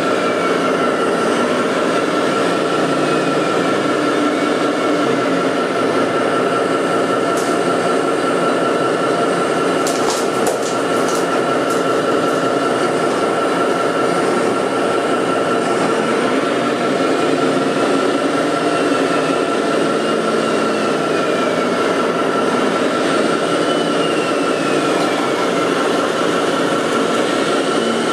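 Small electric motors and gearing of remote-controlled construction machines running steadily, a constant high whine over a rumble, with a falling whine every few seconds as a motor slows. A few quick clicks come about ten seconds in.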